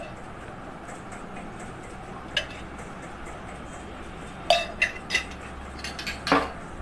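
Metal spoon and steel kitchenware clinking: one sharp clink about two seconds in, then a quick run of five or six clinks near the end.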